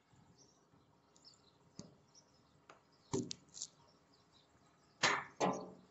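Handling noise from a phone held against clothing and hands: a few scattered clicks and knocks, then two loud rustling whooshes about five seconds in.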